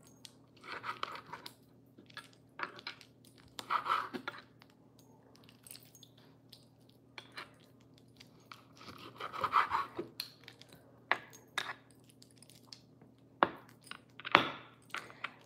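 A dull kitchen knife sawing through chunks of raw beef on a wooden cutting board: irregular scraping bursts, with a few sharp taps of the blade on the board near the end.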